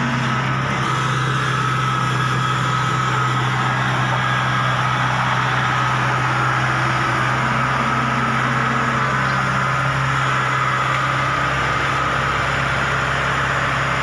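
Kubota DC70 rice combine harvester's diesel engine running steadily at an even pitch as the tracked machine drives and manoeuvres, with a thin steady whine above the engine note.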